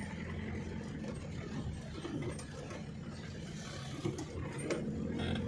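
Vehicle engine and road noise heard from inside the cab while driving: a steady low hum with a few faint clicks.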